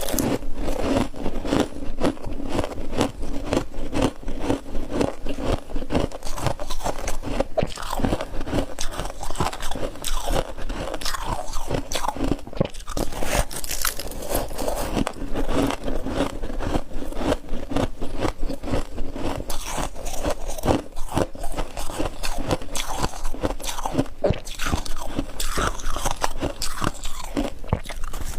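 Close-up crunching and chewing of hard frost chunks, many rapid brittle cracks in a continuous run as the ice is bitten and chewed.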